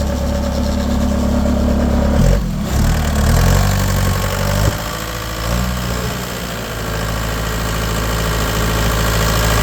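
Bobcat A300 skid steer's diesel engine running steady, then revved up about two seconds in, its pitch climbing and falling back over the next few seconds before it settles into a steady run again. The inspector judges that the engine sounds good.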